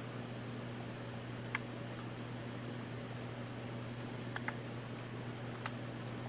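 A handful of scattered computer mouse and keyboard clicks, spaced irregularly, over a steady low hum.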